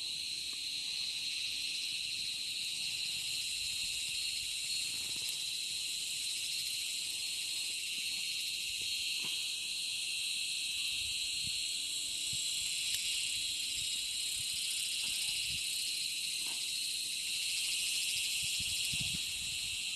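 Dense, steady chorus of insects at dusk, a continuous high-pitched shrilling with no break.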